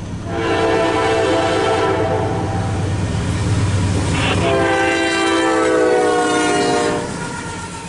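Norfolk Southern diesel locomotive's air horn sounding two long blasts as the train approaches, the second dropping in pitch as the locomotive passes, over the low rumble of the diesel engines.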